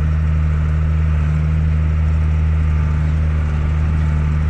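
Farm tractor engine running at a steady speed, a low, even drone.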